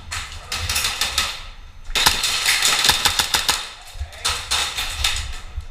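Airsoft guns firing in rapid bursts: clusters of sharp cracks and clicks. The densest burst comes about two seconds in.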